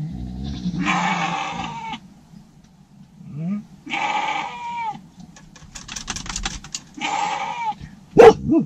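Sheep bleating three times, each call about a second long and falling in pitch at its end. A dog barks sharply near the end, and there are short clicks between the second and third bleats.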